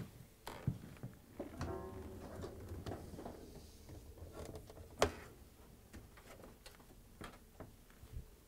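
Top-load washing machine being lowered onto its back: light scrapes and knocks of the sheet-metal cabinet, a short creaking squeak about two seconds in, and a sharp knock about five seconds in.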